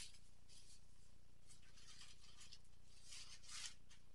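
Faint rustling and crinkling of a clear plastic bag being handled, in a few soft spells about a second and a half and three seconds in, over a low steady hum.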